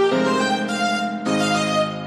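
Instrumental background music, a string melody of held notes that changes pitch about every second.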